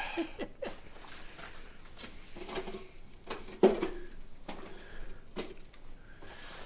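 Footsteps and scuffs on a gritty concrete basement floor strewn with debris: a handful of irregular short knocks, the loudest about halfway through.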